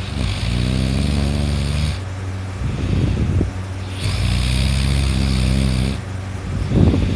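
A person snoring loudly in deep sleep: two long, buzzing snores of about two seconds each, with rough, fluttering breaths between them and another near the end.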